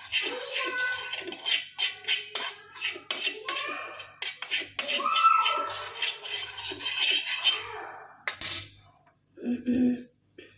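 A spoon scraping and clinking against a pan as roasted turmeric powder is scraped out, with a few brief squeaks among quick rattling clicks. A sharp clack comes about eight seconds in.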